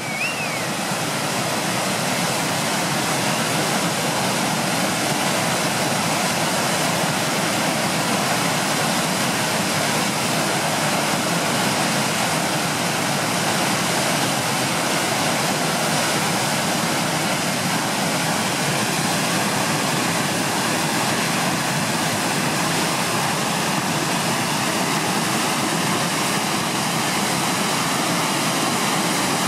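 Steady rushing roar of tidal rapids and their standing wave running hard during a very large tidal exchange. It swells up over the first second or two, then holds even.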